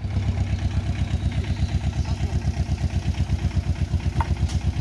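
A vehicle engine idling with a steady low chugging pulse, about ten beats a second. A single short click sounds about four seconds in.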